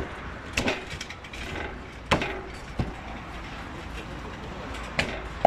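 Meat cleaver chopping through a carp onto a wooden chopping block: a handful of sharp knocks at uneven intervals, the loudest near the end.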